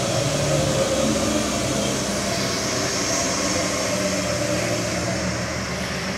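Heavy diesel tour buses and a tanker truck crawling past at low speed around a sharp bend: a steady engine drone with a steady higher tone above it.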